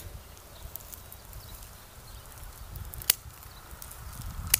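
Hand pruning shears snipping grapevine canes: three sharp, short clicks, one at the start, one about three seconds in and one near the end.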